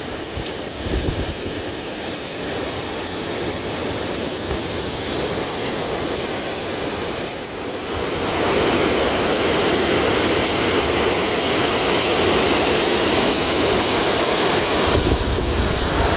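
Sea surf on a sandy beach: waves washing in, growing louder about halfway through, with wind buffeting the microphone.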